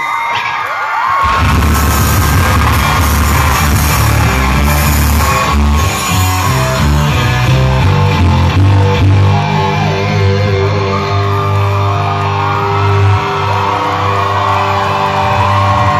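Live rock band playing loud in a concert hall, with electric guitar. The full band with a heavy low end comes in about a second in.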